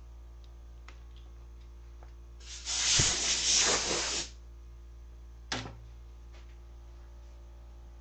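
A hiss of pressurised spray lasting about two seconds, followed about a second later by one short spurt.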